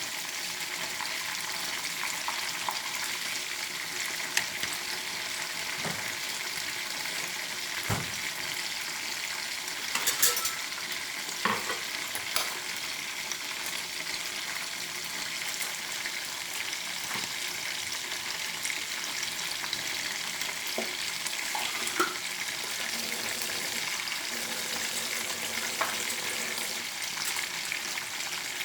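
Food deep-frying in hot oil: a steady crackling hiss with scattered sharp pops, a few louder ones bunched together about ten seconds in.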